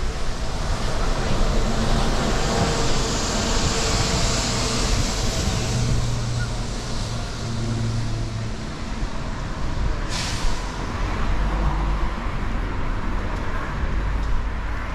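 Street traffic on a wet road: a vehicle passes with a hiss of tyres on the wet pavement and a low engine hum, and a short sharp hiss comes about ten seconds in.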